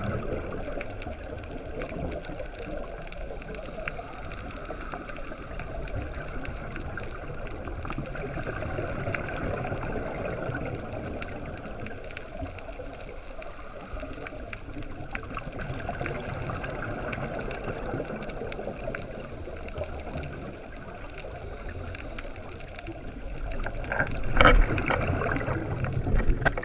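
Scuba divers breathing through their regulators underwater, heard muffled through a camera's underwater housing: exhaled bubbles swell and fade about every seven or eight seconds. A louder, closer burst of bubbles with a few knocks comes near the end.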